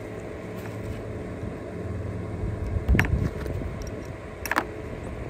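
Two short, sharp metallic clicks about a second and a half apart, as small metal parts of a hydraulic cab jack's pump body are handled on the bench, over a steady low rumble.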